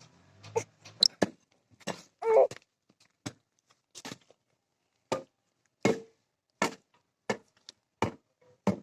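Repeated sharp knocks, irregular in the first half, then a steady stroke about every 0.7 seconds, as in chopping.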